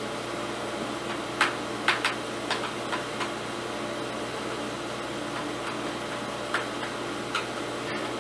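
Sharp clicks and taps of a screwdriver on the screws of a plastic room-heater back cover: a quick run of about six in the first few seconds, then two more a few seconds later, over a steady background hiss.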